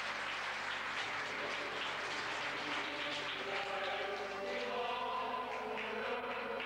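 Audience applauding, with the next piece of stage music coming in over the clapping about halfway through. The sound is the dull, hissy audio of an old videotape recording.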